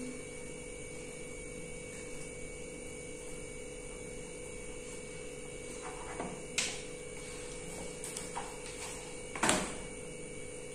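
Steady low electrical hum in the room, with a few short scrapes and taps of pen, paper and calculator on the table while working through calculations, the clearest about six seconds in and again about nine and a half seconds in.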